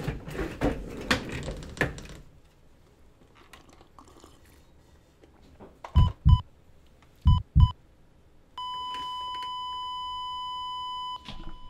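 Knocks and rustling, then two double heartbeat thumps, each with a short electronic beep. Then a heart monitor's steady flatline tone holds for about two and a half seconds and cuts off: a heart-monitor sound effect for a heart stopping.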